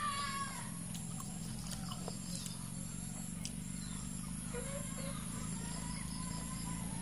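Outdoor background: a steady low hum under an insect's thin, high chirping that repeats in short pulses about once a second. A brief high call fades out about half a second in.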